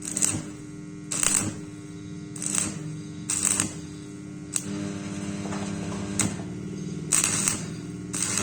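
Welding machine humming steadily, with about six short bursts of arc crackle and hiss as the arc is struck briefly on thin galvanized square pipe, and a couple of sharp clicks in between.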